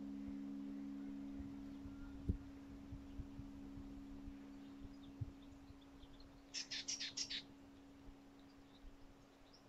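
A bird gives a quick run of about six high chirps about seven seconds in, with a few fainter chirps here and there. Under it a low, steady ringing tone slowly fades, and a single soft thump comes about two seconds in.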